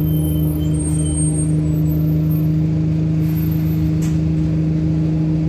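Diesel engine of an Alexander Dennis Enviro 200 single-deck bus running at a steady pace, heard from inside the passenger saloon as a low drone with a steady hum. A single short click comes about four seconds in.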